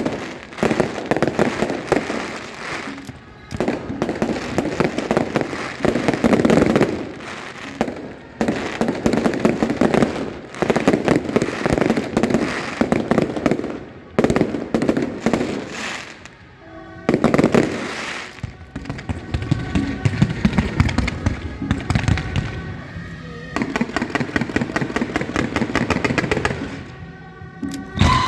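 Fireworks going off: volleys of rapid bangs and crackling, each a few seconds long, with short breaks between them.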